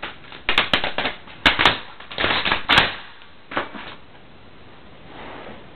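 AK-74 rifle parts being fitted and snapped together by hand: a quick run of sharp metal clicks and clacks, some in clusters, stopping about four seconds in.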